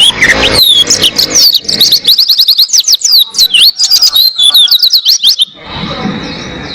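White-eye (pleci) singing a fast, continuous run of high chirping notes that sweep up and down, breaking off abruptly about five and a half seconds in. A faint steady background with a thin high tone remains after the song.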